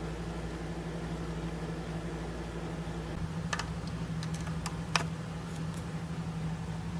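A few sharp plastic clicks from handling and plugging in a micro USB cable and charger adapter, bunched about three and a half to five seconds in, the last one loudest, over a steady low hum.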